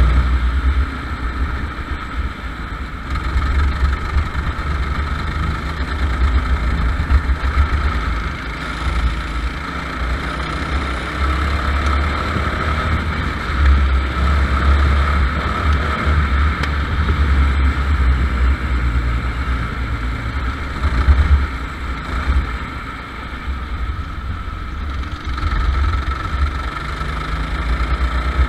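Go-kart engine running at racing speed, heard from a camera mounted on the kart, with a heavy low rumble and the level swelling and easing as the driver works the throttle through the corners.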